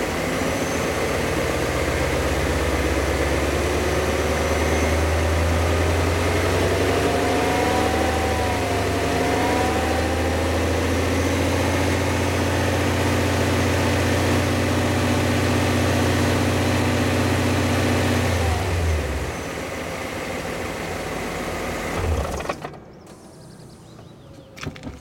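BMW E39 M5's S62 V8 engine running, its speed rising over the first several seconds and held, then dropping back about three-quarters of the way through before the engine is switched off near the end, leaving a few clicks. The owner reports a sharp knock from this engine when accelerating and at 1500 rpm and asks whether it is the rod bearings.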